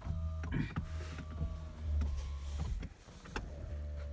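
Car power window motor running with a steady whine for about three seconds, stopping briefly, then running again for about a second near the end.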